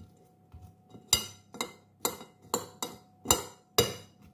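Metal spoon clinking against the side of a bowl about seven times, roughly two strikes a second, as it stirs and pushes chicken pieces down into pasta.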